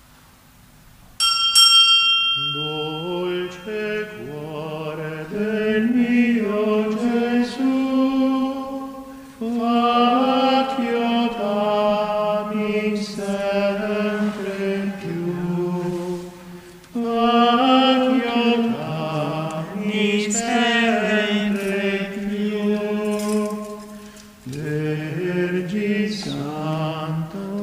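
A single bright chime rings about a second in. Then voices sing a slow hymn in Italian, phrase by phrase, with short breaks between the verses.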